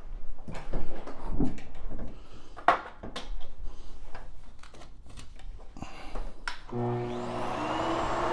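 Clicks and knocks of an upright vacuum being handled and set up, then about seven seconds in its motor switches on and spins up with a rising whine into a steady run.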